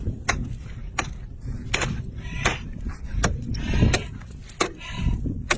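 Repeated sharp strikes on a stone, about one every three-quarters of a second, as it is being broken open. A low rumble runs underneath.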